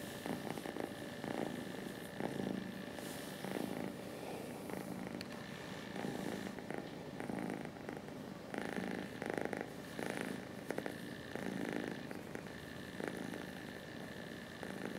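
Cat purring steadily while being stroked, swelling in waves about once a second with each breath.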